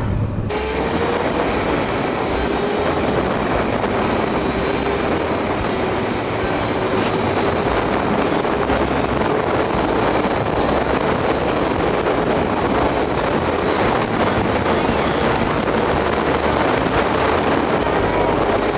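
Motorcycle riding at highway speed: a constant rush of wind and road noise with a steady engine drone underneath.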